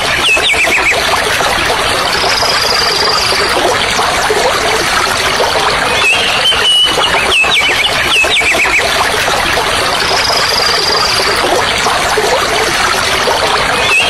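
Birds calling over the steady rush of a flowing stream. A burst of chirping calls comes at the start, again about halfway and at the end, with a long thin high whistle between each burst, so the pattern repeats about every eight seconds.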